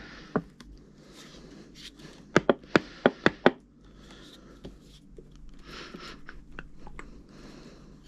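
Supplement containers and packaging being handled: a quick run of about six sharp knocks a couple of seconds in, with soft rustling around them.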